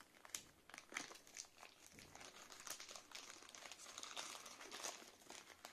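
Faint crinkling and rustling of a plastic courier mailer as it is cut with scissors and pulled open by hand, with scattered sharp crackles throughout.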